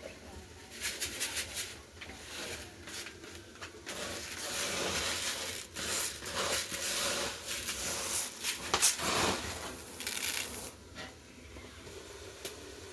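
Kitchen cooking noises: irregular scraping, rustling and clicking, with a louder knock about nine seconds in.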